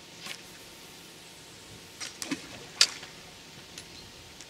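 A few short, scattered clicks and taps over a faint background hiss, the loudest about three seconds in.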